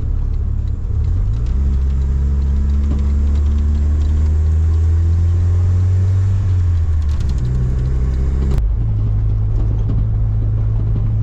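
Vehicle engine and road drone, heard as a loud, steady low hum whose pitch shifts a few times and rises gently in the middle, as on the move. The sound changes abruptly about eight and a half seconds in.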